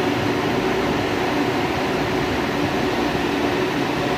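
Freezer's condenser fan and compressor running: a steady blowing noise with a constant low hum.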